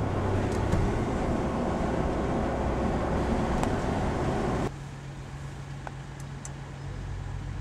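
Audi RS5's 4.2-litre V8 with sport exhaust running under way, mixed with road noise. About two-thirds of the way through, the sound drops sharply to a quieter, steady low hum.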